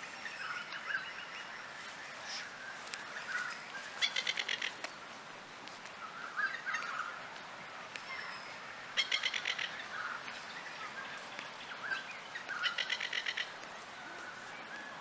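Masked lapwing calling: three short bursts of fast, harsh rattling notes, about ten a second, with softer chirps between them.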